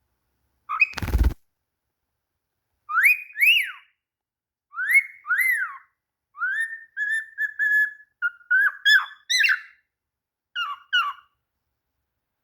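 Cockatiel whistling: a string of short whistled notes, some sweeping up and down, some held level, in groups with short gaps between. A thump about a second in.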